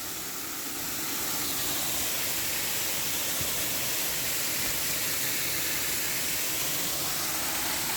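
Waterfall rushing: a steady, even roar of falling water that rises slightly about a second in.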